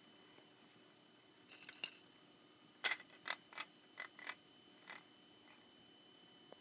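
Hanging plastic toys on a baby rocker's toy bar clacking as the baby bats at them. First a short flurry of light clicks, then a run of about seven sharp clacks over roughly two seconds.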